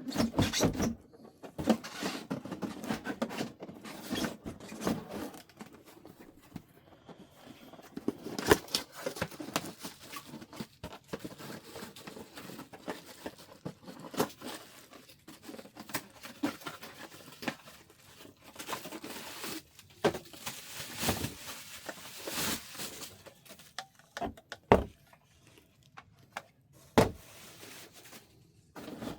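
Packaging being handled during an unboxing: cardboard and plastic rustling and crinkling, with scattered sharp clicks and knocks.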